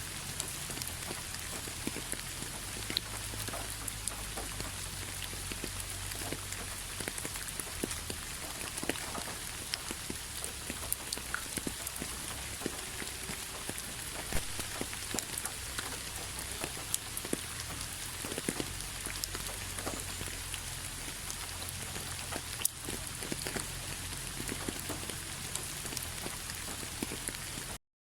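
Steady rainfall, an even hiss with many individual drops ticking sharply on a surface. The sound cuts out completely for a split second just before the end.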